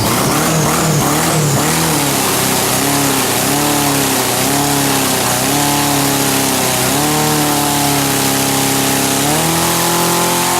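Mazda four-cylinder engine with four small K03 turbochargers, revving up and down about once a second, then held at a steady speed, and rising again near the end.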